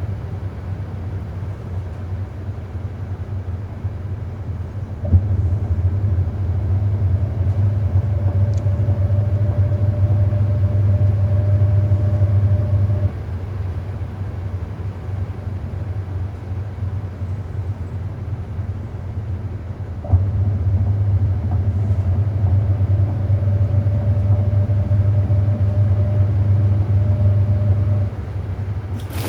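Hoover 800RL top-loading washing machine running its cycle: the motor switches on with a click, runs for about eight seconds with a low hum and a faint whine, then stops, and does this twice over a steady background hum.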